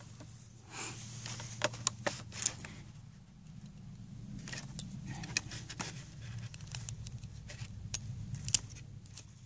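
Light plastic clicks and scrapes of a Schick Hydro Silk razor handle being pushed and worked against a replacement cartridge, not yet snapping in. A faint low hum runs underneath.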